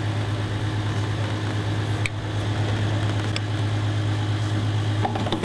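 Petrol pump running with a steady hum while fuel flows through the nozzle into a motorcycle's tank. Two short clicks come about two and three and a half seconds in.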